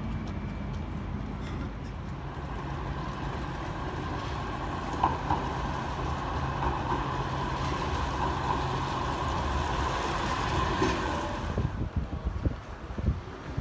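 A Manchester Metrolink tram running along street track: a steady low hum with a mid-pitched whine that grows louder through the middle and stops abruptly about 12 s in. After that, wind knocks on the microphone.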